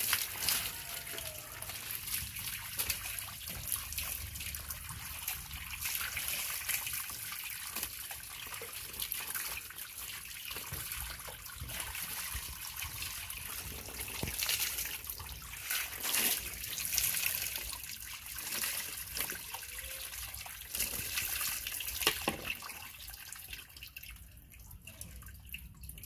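Water poured from a plastic scoop over a monkey's fur, splashing and trickling down into a plastic tub and onto the ground, scoopful after scoopful. It grows quieter near the end.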